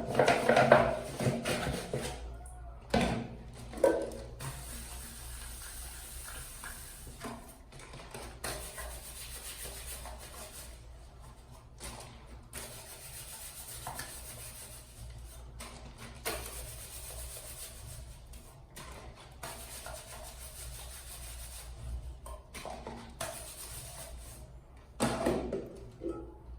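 Scrubbing and rubbing on a surface during cleaning, a steady scratchy hiss, with a few louder knocks and clatters in the first seconds and again near the end.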